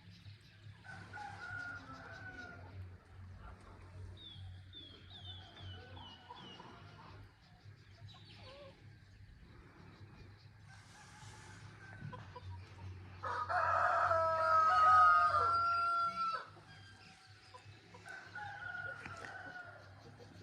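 Roosters crowing: one close rooster gives a loud, drawn-out crow about two-thirds of the way in, with fainter crows from farther roosters near the start and near the end. A quick run of high chirps from a small bird comes a few seconds in, over a steady low hum.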